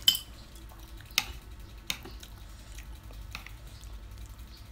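Metal chopsticks and a spoon clinking and tapping against ceramic plates: a sharp click right at the start, two more about one and two seconds in, and lighter taps between.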